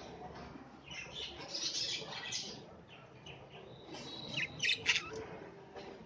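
Show budgerigars chattering, with a few short, sharp chirps about four and a half seconds in, the loudest moment.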